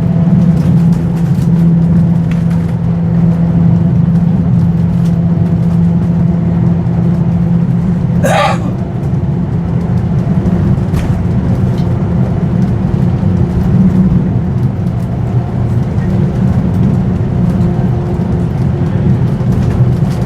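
Vintage tram running, a steady rumble with a low electric hum. About 8 seconds in there is a brief high-pitched squeal.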